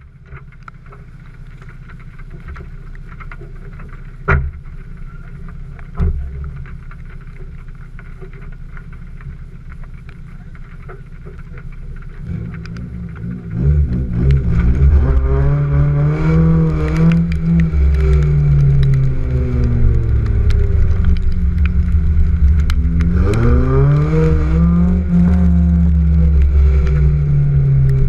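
Honda S2000's four-cylinder engine running low and steady, with two sharp knocks about four and six seconds in, then revving hard from about halfway, its pitch rising and falling again and again through drifting.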